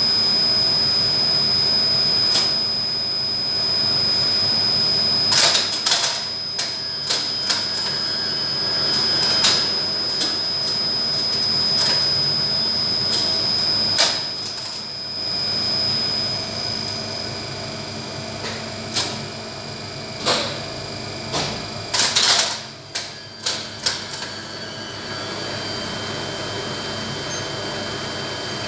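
Relays and contactors of a 1970s Otis relay lift controller and floor selector clicking and clunking in irregular bursts, as the lift is called and dispatched, over the steady high whine and hum of the DC drive machinery. After the last burst of clicks the machine runs steadily as the car travels.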